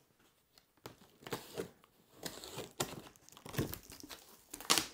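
Cardboard shipping box being opened: the packing tape slit along the top, then the flaps crinkling and scraping as they are pulled open. Irregular rustles and clicks start about a second in, with the loudest crinkle near the end.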